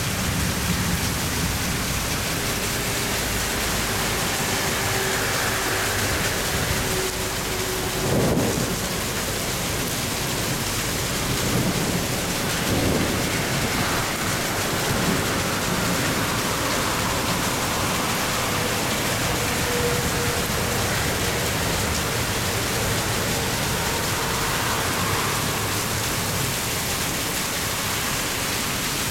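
Heavy rain pouring down in a steady hiss, with brief louder swells about eight and thirteen seconds in.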